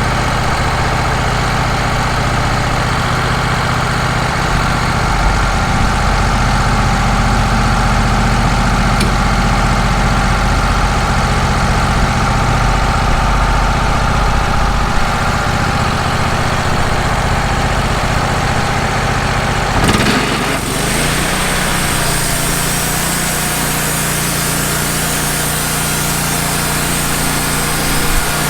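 Wood-Mizer LT15 sawmill's engine running steadily. About two-thirds of the way in the sound changes abruptly, taking on more high-pitched hiss.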